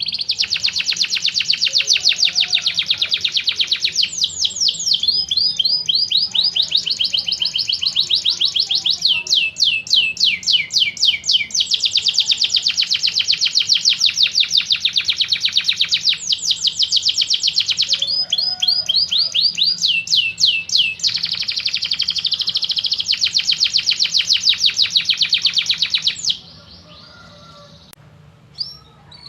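Domestic canary singing a long, continuous song of fast rolling trills, its repeated notes changing to a new trill type every few seconds. The song stops about three seconds before the end, with one short note just after.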